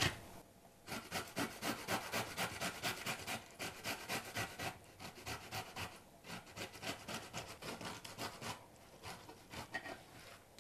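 Peeled pickled cucumber being grated on the fine side of a metal box grater: quick, even rasping strokes at several a second, with a couple of short pauses.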